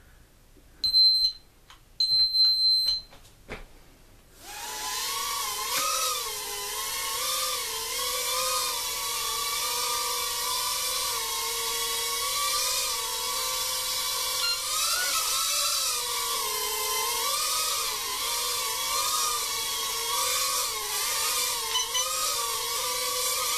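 Two short high electronic beeps, then about four seconds in the Cheerson CX-10 micro quadcopter's tiny motors and propellers spin up into a high whine that wavers up and down in pitch as it hovers and flies.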